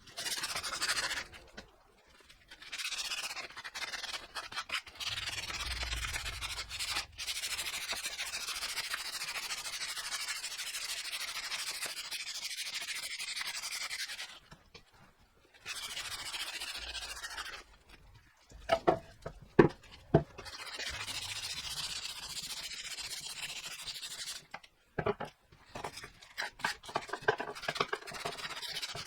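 Sandpaper rubbing on a wooden axe handle to smooth off its roughness, a steady scratchy hiss in long runs with short pauses between them. A few sharp knocks come about two-thirds of the way through.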